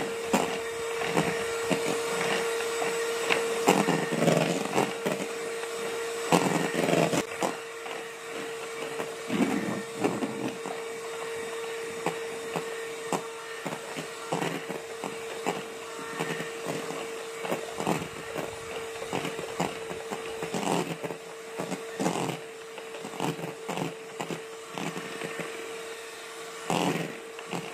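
Electric hand mixer running steadily, its beaters whipping egg whites into boiled icing in a stainless steel bowl. A steady motor whine, with frequent clicks and scrapes as the beaters strike the metal bowl.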